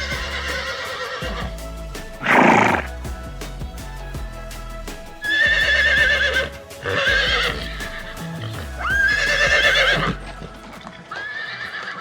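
Horse whinnying several times, each neigh a wavering high call about a second long, with a short loud burst about two seconds in, over background music.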